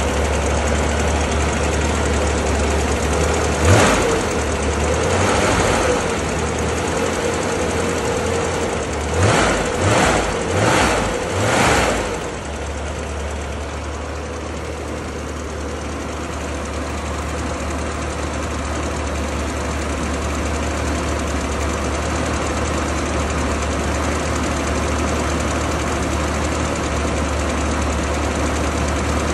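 Classic car engine idling during a cold start, blipped once about four seconds in and again near six seconds, then revved four times in quick succession around nine to twelve seconds before settling back to a steady idle.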